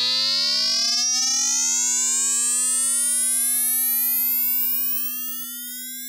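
Vital software synthesizer playing an FM sound effect. Oscillator 2 frequency-modulates oscillator 1, and a slow-attack envelope raises the modulator's pitch. The result is a steady low tone under a cluster of higher tones that all glide slowly upward, getting quieter about five seconds in.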